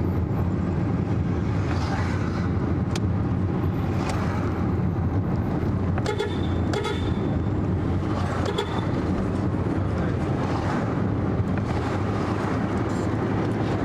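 Steady engine and road rumble of a car driving through city traffic, with short car-horn toots about halfway through.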